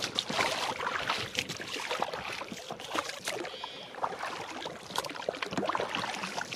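Oars of an inflatable dinghy being rowed, with water splashing and trickling off the blades and lapping at the hull, and frequent small sharp splashes and knocks.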